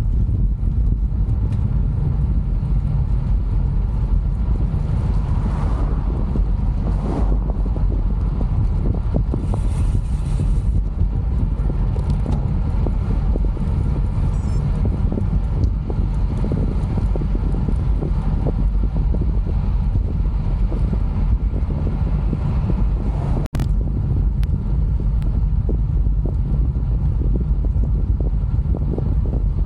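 Wind buffeting the microphone of a handlebar-mounted camera on a road bike riding at speed, a steady low rumble. The sound cuts out for an instant about two thirds of the way through.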